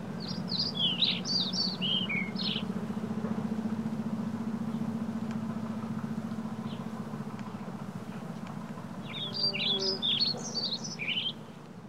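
A songbird singing two quick phrases of chirping notes, one about a second in and another near the end, over a steady low hum.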